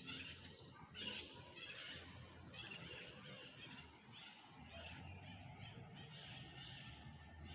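Birds calling: a run of short, high calls repeating several times, loudest in the first two seconds and fainter after, over a low steady rumble that grows about halfway through.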